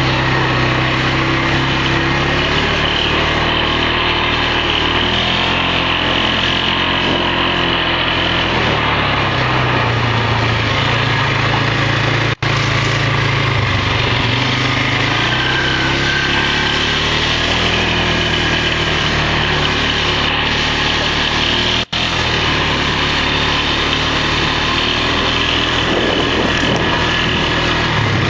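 Quad (ATV) engine running under way, its pitch rising and falling as the throttle changes over rough grass. The sound cuts out for an instant twice.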